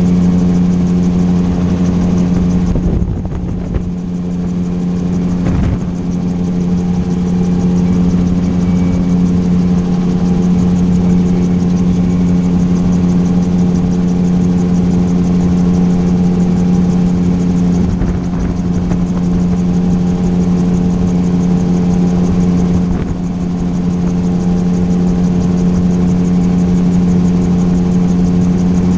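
Gyroplane's engine and propeller running steadily in cruise, with a constant low drone. The level drops a little for a moment about three seconds in and again at about twenty-three seconds.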